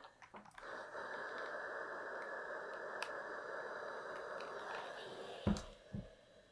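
Steam iron hissing steadily for about four and a half seconds while pressing fabric, then two dull thumps about half a second apart near the end.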